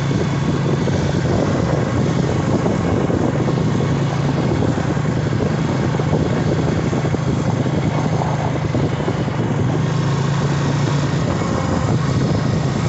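Honda ATV engine running steadily while riding, a constant low engine hum with no change in speed.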